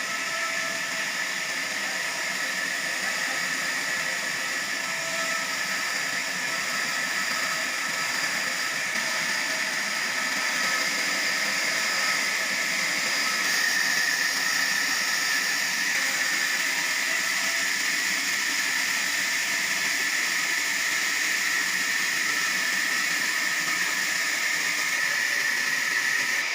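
Sawmill saw machinery running steadily: an unbroken hiss with faint steady whining tones.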